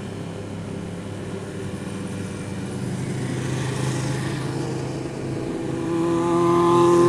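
Motorcycle engine running steadily while riding, over rushing road and wind noise. It gets louder over the last second or so.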